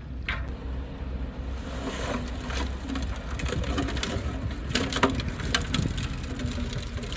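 Bulldozer engine running low and steady, with many sharp cracks and snaps of wood and brush being crushed as it pushes through forest.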